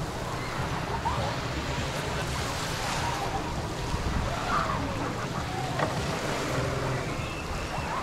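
Small sea waves washing steadily over a pebble shore, with faint distant voices from the beach now and then.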